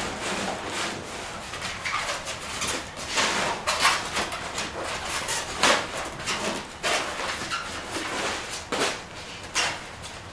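Nylon fabric rustling and scraping in irregular bursts as stiff foam seat cushions are worked into a float tube's seat pocket.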